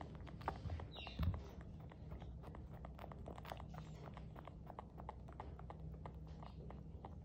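Otter sucking on its own paw: a quick, uneven run of small wet sucking clicks, several a second. A brief high squeak comes about a second in, over a steady low hum.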